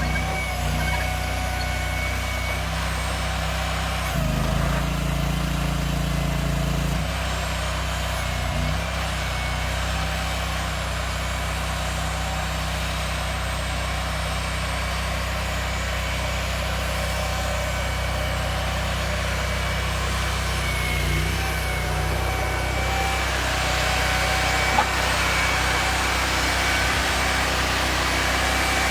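Engine of a self-propelled pile-driving machine running steadily, with a short change in its tone about four to seven seconds in and a single sharp knock near the end.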